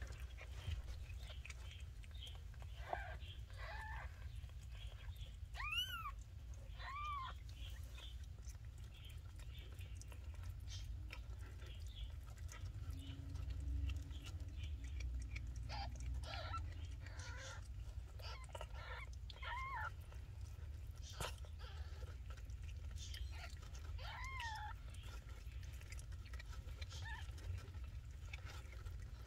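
Newborn kittens mewing: short, high-pitched cries that rise and fall, about seven of them, several close together in the first seven seconds and two more later. Between the cries come faint clicks and rustles as the mother cat licks the wet kittens clean.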